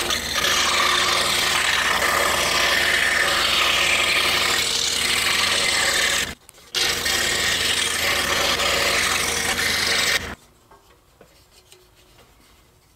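Scroll saw with a fine number 3 reverse-tooth blade cutting 1/4-inch cherry: a steady rasping of the blade through the wood over the motor's hum. It stops briefly about six seconds in, runs again, and stops about ten seconds in.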